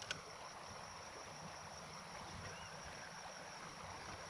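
Faint creekside ambience: a steady, high-pitched insect drone over a low hiss, with one small click just after the start.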